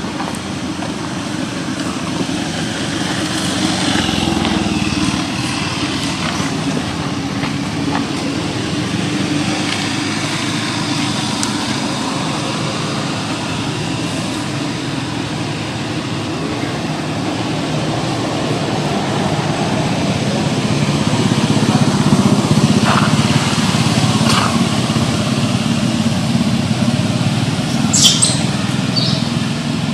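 Steady motor-vehicle rumble, swelling a little after about twenty seconds, with a few short high-pitched squeaks near the end.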